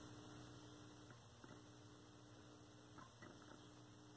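Faint steady mains hum from a powered 1932 Aztec cathedral vacuum-tube radio, with a few faint clicks from a multimeter probe on its chassis wiring about one and three seconds in.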